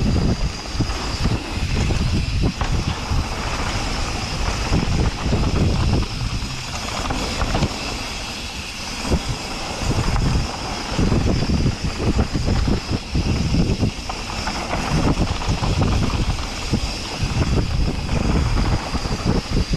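Wind buffeting a helmet-mounted camera's microphone on a fast mountain-bike descent, mixed with the rumble of the tyres rolling over a dirt trail. The noise swells and eases unevenly.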